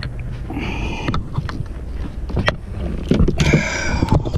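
Handling noise of a largemouth bass and gear on a small boat's deck: knocks, rustles and two brief squeaks, about half a second in and again near the end, over a steady low rumble.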